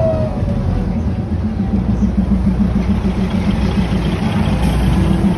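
A diesel train's engine running at low speed, a loud steady low rumble with an even throb.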